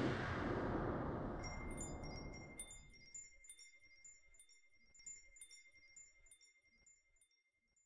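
Logo sting: a loud whoosh swell fades out over the first three seconds. A string of high, sparkling chime notes over a held tone comes in, and these die away gradually near the end.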